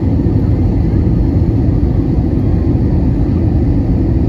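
Airbus A320 cabin noise on the landing approach: a steady low rumble of the engines and the airflow past the fuselage, heard from inside the passenger cabin.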